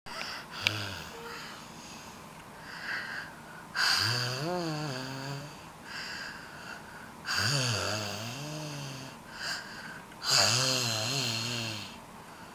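Snoring: three loud, rough snores about three seconds apart, each with a low drone that wavers in pitch, and softer breaths between them.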